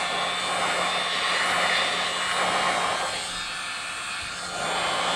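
Heat gun blowing hot air steadily, with a faint motor hum, on the lower of its two heat settings, warming a phone's cracked glass to soften the adhesive beneath. The blowing gets fainter for about a second and a half, roughly three seconds in, then returns.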